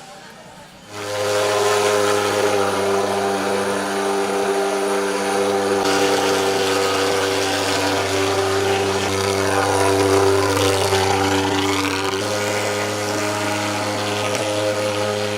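Insecticide fogging machine running with a steady, loud buzzing drone that starts abruptly about a second in.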